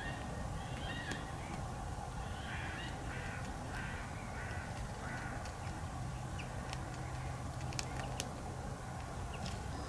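A bird calling in a series of short, repeated calls through the first half, over a steady low background rumble; a few faint sharp clicks near the end.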